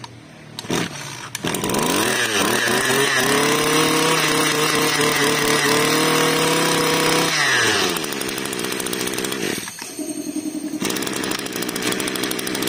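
Small 22 cc two-stroke engine of a Kioritz Echo brush cutter starting. It is revved high for about five seconds, then drops back to a steady idle.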